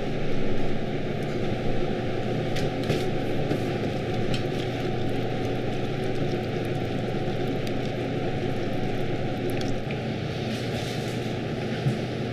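Steady machine hum, like a kitchen appliance or fan running, with a few faint clinks of a steel bowl settling against ice in an ice-water bath.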